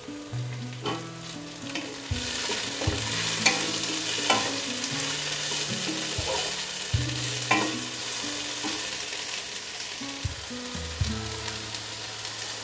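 Squeezed, soaked soya chunks (meal maker) frying with onions in hot oil in a nonstick pot, sizzling steadily while a wooden spatula stirs and scrapes them, with sharp scrape strokes every second or so. The sizzle grows louder about two seconds in, as the stirring spreads the chunks through the oil.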